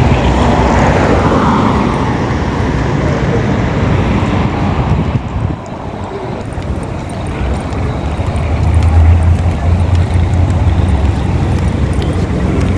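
Street traffic: a box truck drives past at the start, its noise sinking away over the first two seconds, then steady road and engine noise with a deep rumble that is loudest from about nine to eleven seconds in.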